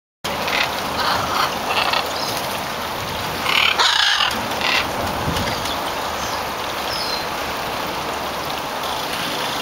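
Macaws squawking: several short calls, with a louder call about four seconds in, over steady background noise.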